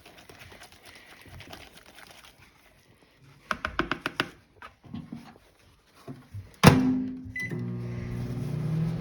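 Microwave oven being set going again: a few clicks and knocks, the door shutting with a loud thunk a little past halfway, a short beep, then the steady hum of the microwave running.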